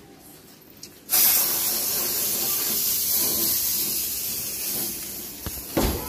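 Aerosol spray can hissing in one long continuous spray that starts suddenly about a second in and slowly weakens, with a thump near the end.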